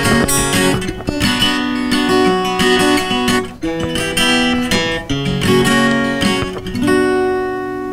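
Capoed acoustic guitar strummed without singing, chords changing every second or two. These are the closing chords of the song: the last one, struck about seven seconds in, is left ringing.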